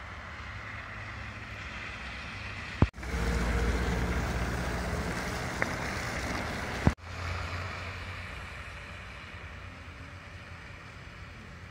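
Outdoor traffic ambience on a snowy road: a steady low vehicle rumble with tyre hiss, loudest in the middle few seconds. Sharp clicks at about 3 s and 7 s mark abrupt cuts between clips, each changing the level.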